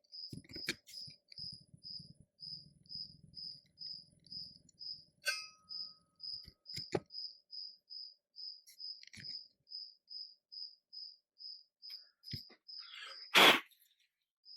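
A cricket chirping steadily, about four short high chirps a second. Scattered clicks and knocks of handling come over it, the loudest a clunk near the end.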